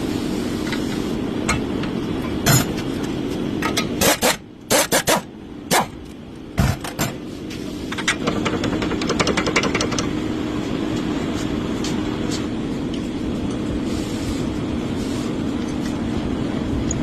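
Car on the move, a steady road-and-engine drone with a run of sharp knocks and clicks about two to seven seconds in, the kind of suspension noise being diagnosed.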